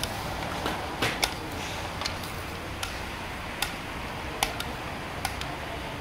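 A metal serving bowl clinking against steel platters as Kabuli pulao rice is scooped and piled: about a dozen sharp clinks at uneven intervals over a steady background noise.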